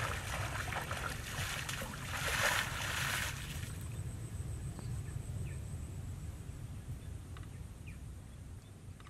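Feet splashing through shallow river water for about the first three seconds, stopping as the wader steps onto the bank. Then a low steady rumble with a few faint bird chirps, fading out near the end.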